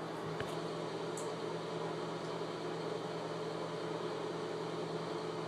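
A steady mechanical hum with a constant low drone, with a faint click about half a second in.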